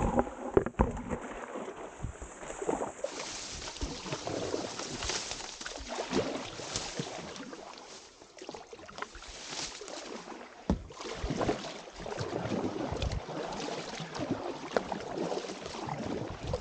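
Kayak being forced through a narrow, overgrown stream: reeds and leaves rustling and scraping against the boat and the helmet camera, mixed with irregular paddle splashes and knocks.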